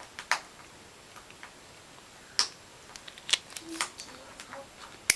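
About five sharp, irregularly spaced clicks and taps, with fainter ones between: a plastic glow stick knocking against a glass beaker.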